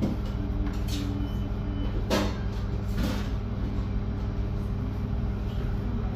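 Steady low mechanical hum, with a few sharp knocks or clatters about one, two and three seconds in.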